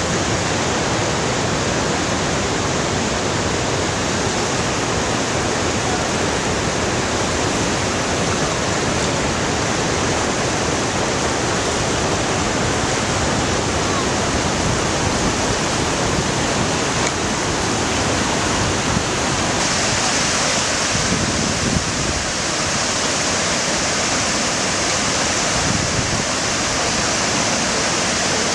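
Floodwater from heavy rain rushing through a normally dry desert river channel in rapids: a loud, steady rush of water that turns a little brighter and hissier about two-thirds of the way through.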